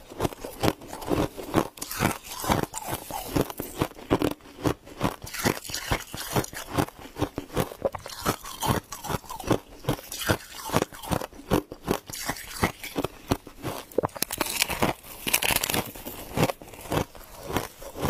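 Freezer frost being chewed close to the microphone: a fast, unbroken run of crisp crunches, several a second, with a denser, hissier stretch about fifteen seconds in.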